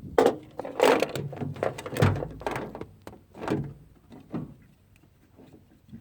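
Metal jumper-cable clamps clanking and being clamped onto a car battery's terminals: a quick run of sharp knocks and clunks, one deeper thud about two seconds in, then quieter near the end.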